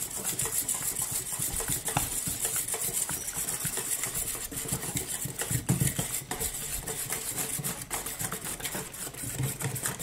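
Wire whisk beating a liquid pudding batter in a stainless steel bowl: rapid, continuous strokes of the wires rattling and scraping against the metal as the liquid swishes.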